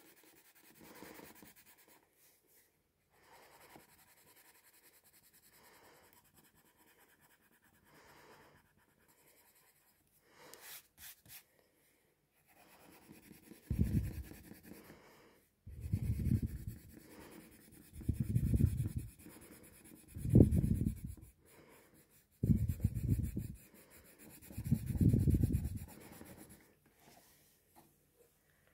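Coloured pencil shading on drawing paper: faint soft scratching at first, then about six heavier rubbing strokes in the second half, each lasting about a second.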